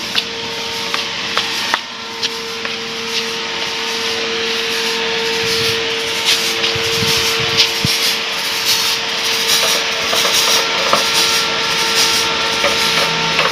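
Handheld fogging machine blowing disinfectant mist: a steady hiss with an even hum under it, growing gradually louder. A few light knocks in between.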